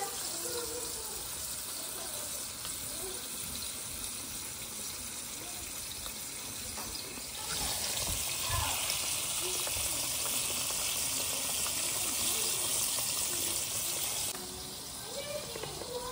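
Breaded chicken cutlets deep-frying in a pan of hot oil, in their second fry: a steady sizzling hiss that gets louder about seven and a half seconds in and drops back near the end.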